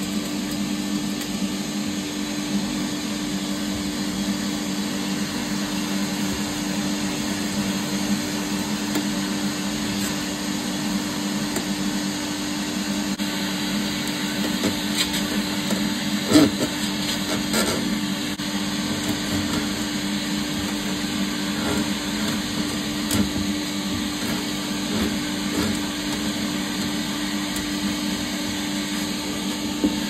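Vacuum running steadily with its hose down in a soot-clogged oil boiler flue, sucking out loosened soot. A few knocks come about halfway through.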